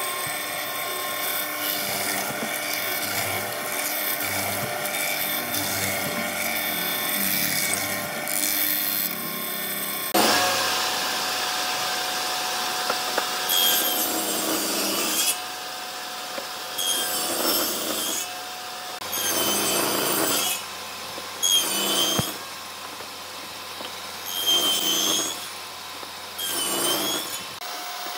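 A mortising machine running and boring into hardwood for about ten seconds. It then gives way to a table saw's steady whine, with about six short cuts into the end of an upright wooden piece; the blade's pitch dips under load on each cut and recovers between them.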